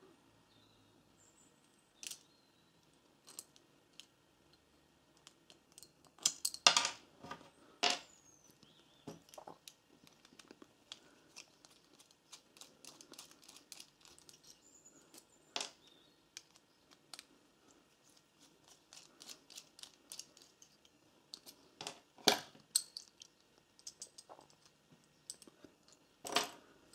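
Small steel parts of a socket ratchet's mechanism (pawls, springs, selector) being handled and taken apart: irregular light metallic clicks and taps, with a cluster of louder clicks about a quarter of the way through and a few more near the end.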